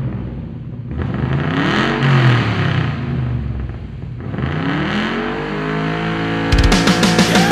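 An engine revving up and falling back twice, its pitch rising and dropping each time. Near the end, heavy rock music with drums comes in.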